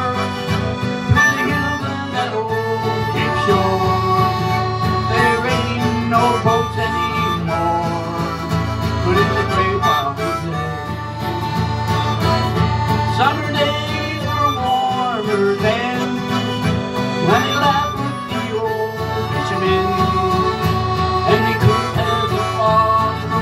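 Harmonica, button accordion and acoustic guitar playing a country tune together, the harmonica's sliding, bending notes riding over the accordion chords and strummed guitar.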